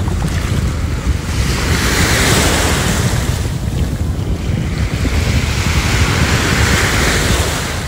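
Ocean waves breaking and washing up on a sandy beach, the surf swelling twice, with wind buffeting the phone's microphone.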